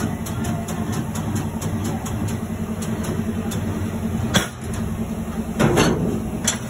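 Tyre-changing machine running with a steady low mechanical hum as a tyre is worked onto a steel wheel. A sharp clack comes about four seconds in, then a short burst of noise and another click near the end.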